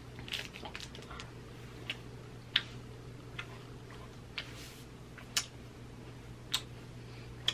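A person chewing a bite of a meat snack stick with the mouth closed: scattered soft mouth clicks and smacks at uneven intervals, over a steady low room hum.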